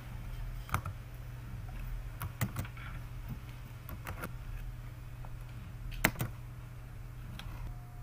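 Scattered clicks of a computer keyboard and mouse, single and in quick pairs, the loudest about six seconds in, over a steady low hum.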